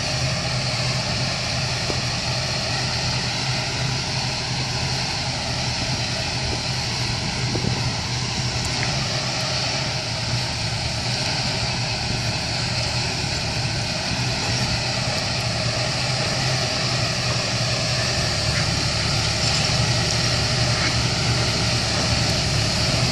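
Tractor engine and the fan of a Munckhof three-row vineyard atomizer running steadily while spraying: a low engine hum under a strong rush of air. It grows a little louder near the end as the machine comes closer.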